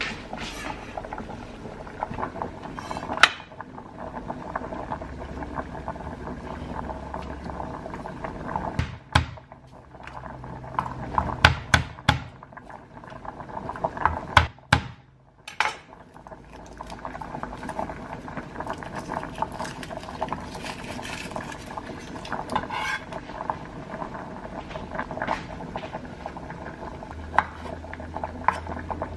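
Spaghetti boiling in a stainless steel pot, a steady bubbling with small crackles. Then garlic is broken into cloves and cut with a chef's knife on a wooden cutting board, with several sharp knocks in the middle.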